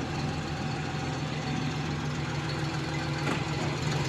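A vehicle engine running steadily with an even low hum.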